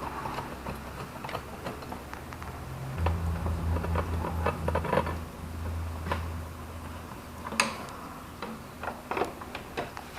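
Scattered metallic clicks and clinks of hand tools on car parts, the sharpest about seven and a half seconds in. A low hum comes in about three seconds in, pulsing at first, then steady, and fades out around seven seconds.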